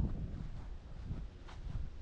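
Footsteps walking along a hiking trail, soft irregular thuds over a low rumble of wind on the microphone.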